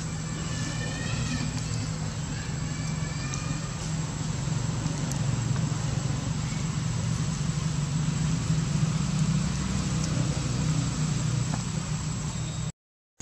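Steady low outdoor rumble that grows a little louder midway, under a thin steady high-pitched tone, with a few short wavering high chirps in the first few seconds.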